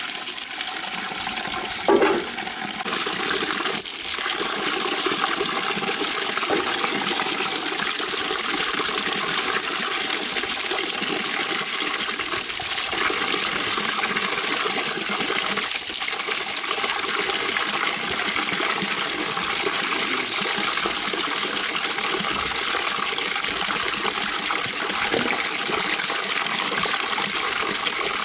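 Water from a standpipe tap pours steadily into a plastic bucket and splashes as young pumpkins are rubbed clean by hand in it. A short, loud thump comes about two seconds in.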